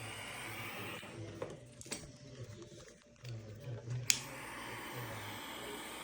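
Steady blowing hiss of a heat tool melting solder onto wire connections; it cuts off about a second and a half in and starts again with a click about four seconds in.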